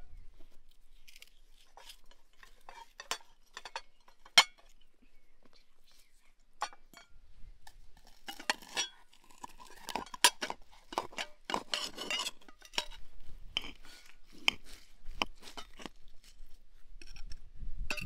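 A metal knife cutting a seared T-bone steak on a china plate, with scraping and clinks of metal on porcelain. Two sharp clinks stand out, about four seconds in and about ten seconds in, and there is a busy stretch of scraping in the middle.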